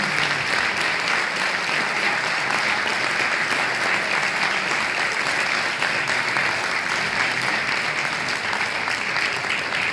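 Audience applauding: a steady, dense round of clapping.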